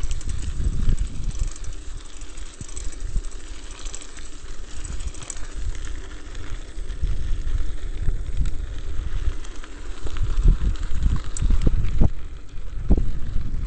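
Wind buffeting the microphone of a mountain bike's action camera on a fast downhill run, over the rumble and rattle of the bike on the road surface. The buffeting gets louder about ten seconds in, with a few sharp knocks near the end.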